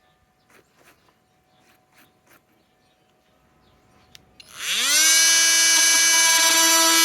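A few faint handling clicks, then about four and a half seconds in a Flex FX 4111 cordless multi-tool starts up, its motor whine rising quickly and settling into a loud, steady high-pitched run.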